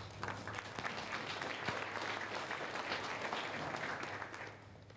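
Audience applauding: many hands clapping at once, dying away shortly before the end.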